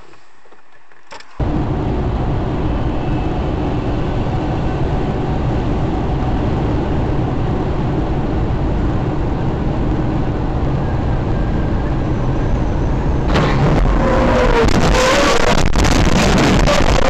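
Loud, steady rumble of a moving vehicle, starting suddenly about a second in. Near the end it grows louder and harsher, with a wavering tone over it.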